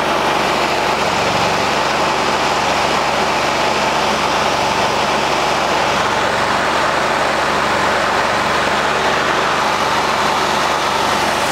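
Portable 5000 W generator's engine running steadily under load; it is a non-silent open-frame type.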